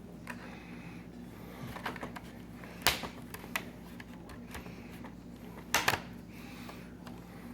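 Sharp plastic clicks and knocks from a laptop's screen assembly being handled and pried at to pop a piece off. The two loudest come about three seconds apart, over a steady low hum.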